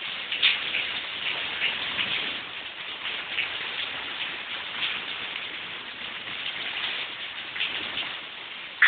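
Rain falling steadily, with many separate drops ticking sharply on a nearby surface.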